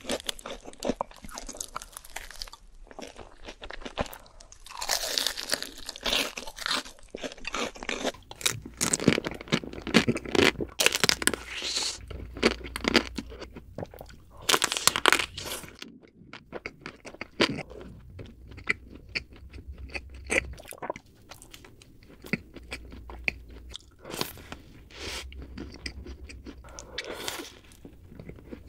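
Close-miked eating sounds: crunchy bites and chewing, first of a breaded fried cheese stick, then of a chocolate-coated ice cream bar and chocolate snack cakes. The sharpest crackling crunches come in a dense run about a third to halfway through, with softer chewing later.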